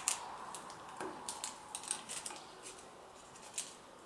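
Clear plastic film crinkling in irregular small crackles and clicks as it is peeled off a circuit board coated with yellow UV solder mask.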